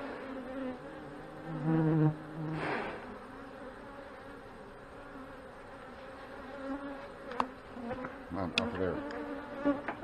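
Honey bees buzzing around an open hive, with single bees flying close past the microphone in loud, passing buzzes that rise and fall in pitch. A few sharp clicks come late on.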